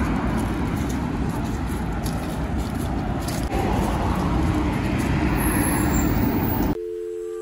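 Street ambience of road traffic: cars passing on the adjacent road as a steady rushing noise. Near the end it cuts off abruptly, and soft background music begins.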